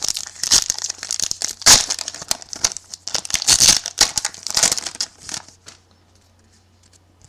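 Foil wrapper of a 2011 Playoff Contenders football card pack being torn open and crinkled by hand: a dense crackling rustle that stops about five and a half seconds in.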